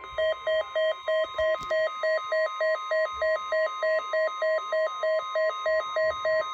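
NOAA Weather Radio 1050 Hz warning alarm tone held steady, sent as the weekly test. Over it the weather radio receiver's own alert beeps in a two-pitch pattern about three times a second, set off by the tone.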